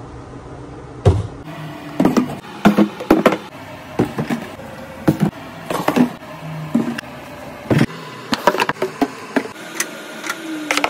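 Plastic tubs, food containers, cartons and bottles being set down one after another on a countertop: a string of irregular knocks and clacks, with a heavier thump about a second in.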